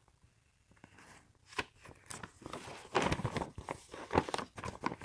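Paper rustling and crackling as a folded instruction manual is handled and its pages turned over, busiest in the second half.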